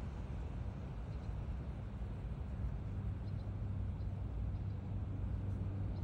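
Steady low outdoor rumble, with a few faint ticks higher up.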